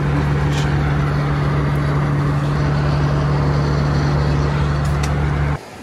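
Airliner cabin noise in flight: a loud, steady drone of engines and airflow with a low hum underneath, cutting off suddenly near the end.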